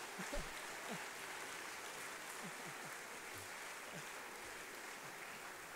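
Quiet auditorium during a pause: steady faint room hiss with a few brief, faint voice sounds from the audience scattered through it.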